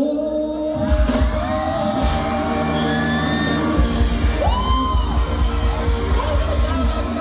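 Live band music amplified through a PA: a woman sings long held notes into a microphone. Drums and bass come in about a second in.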